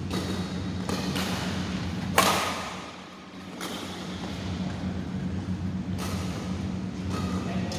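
Badminton rally in an echoing sports hall: sharp racket hits on the shuttlecock and thuds of players' feet on the court, with the loudest, sharpest hit about two seconds in, each ringing briefly in the hall. A steady low hum runs underneath.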